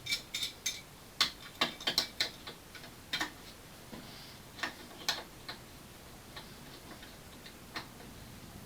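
Irregular sharp metal clicks and clinks of hand tools, a socket and wrench being handled and fitted, closely spaced at first and then thinning out to a few scattered clicks.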